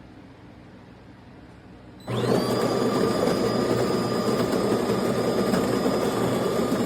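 An electric motor in the De'Longhi Magnifica Start espresso machine, most likely its built-in burr grinder, starts about two seconds in with a quick rising whine. It then runs steadily with a loud, even grinding buzz and a high whine.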